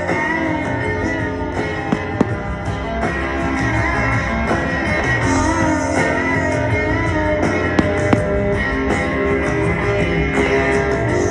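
Guitar-led rock music playing, with a few short sharp cracks of fireworks about two seconds in and again around eight seconds.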